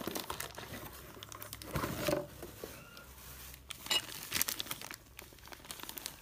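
Clear plastic bag crinkling and rustling as a hand handles the bagged cylinder block, in irregular bursts with louder rustles about two and four seconds in.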